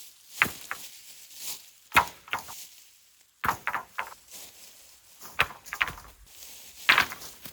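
A series of irregular sharp wooden knocks and clunks, the loudest about two seconds in and near the end, as timber is handled or worked.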